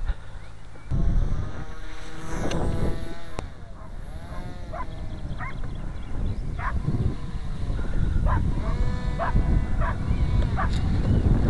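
Motor and propeller of a radio-controlled powered paraglider whining in flight, the pitch gliding up and down with the throttle in short blips. A low rumble of wind on the microphone runs under it.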